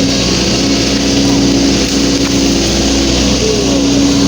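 Excavator's diesel engine running steadily under load.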